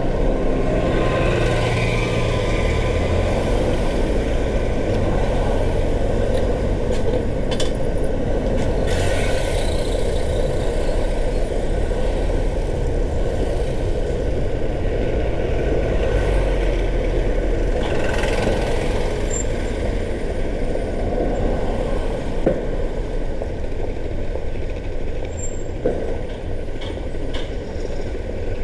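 Steady road and traffic noise from a car driving through city streets: a continuous low rumble of engine and tyres.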